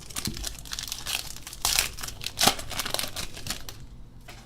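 Crinkling and tearing of a foil trading-card pack wrapper being ripped open by hand, with a couple of sharper crackles partway through.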